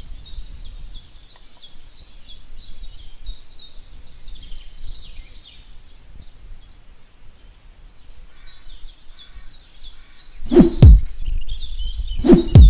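Birds chirping in quick succession over a steady low background noise. About ten seconds in, loud deep thumps begin, each falling in pitch, coming in two pairs about two seconds apart.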